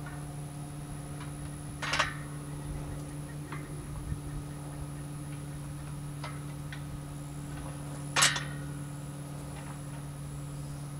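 Metal parts of a solar-tracker frame clinking and knocking together as they are handled and fitted. There are two louder knocks, about two seconds in and about eight seconds in, and a few lighter ticks between, over a steady low hum.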